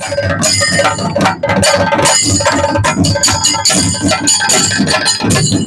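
Chenda drums beaten in rapid strokes with sticks, with elathalam hand cymbals ringing over them: a chenda melam percussion ensemble.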